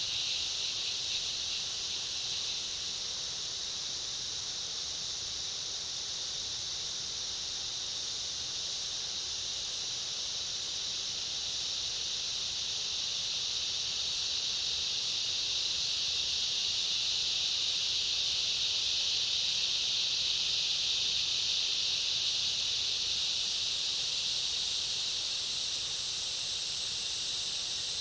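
Summer cicada chorus with other insects: a dense, steady high-pitched buzz that swells slightly midway. A second, higher-pitched insect buzz joins in the last few seconds.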